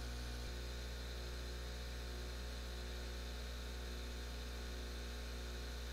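Steady low electrical mains hum with a faint hiss, unchanging throughout.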